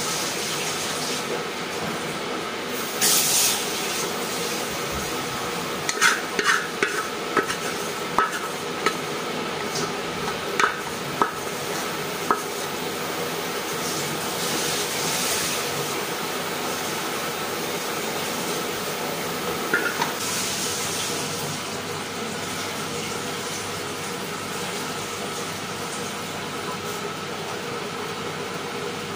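A wooden spatula scrapes and knocks against a metal pot as cooked greens are scraped out into a bowl. There is a run of sharp taps between about 6 and 12 seconds in and a few short scrapes, over a steady background hum.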